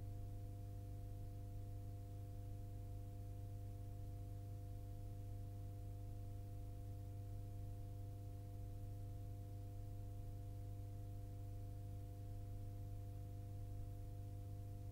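Faint steady hum: a low tone with several fainter higher tones above it, held without any change in pitch or loudness.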